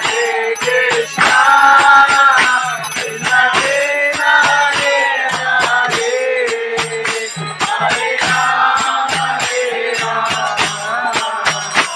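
Group of voices singing a devotional arati kirtan, phrases with long held notes, over steady jingling percussion with sharp metallic strokes.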